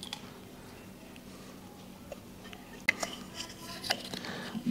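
A few faint, sharp clinks and clicks of a stemmed drinking glass as folded paper draw slips are handled in it, about three to four and a half seconds in.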